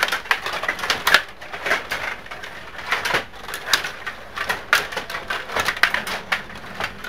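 Stiga table hockey game in play: steel rods sliding and spinning, plastic players and puck clacking together in a rapid, irregular run of clicks and rattles.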